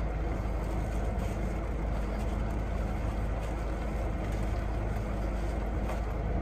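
Steady low hum of a car idling, heard from inside the cabin, with an even rush of air noise over it and a few faint clicks.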